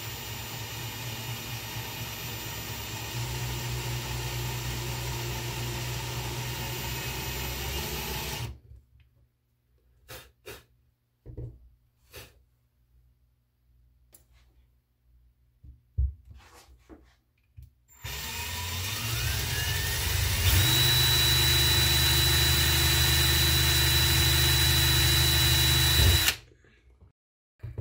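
Ryobi power drill spinning a bit in reverse to drill out a cross-threaded screw stuck in a phone. It runs for about eight seconds, stops, and a few light clicks follow. Then it spins up with a rising whine, runs at full speed for about six seconds and stops suddenly.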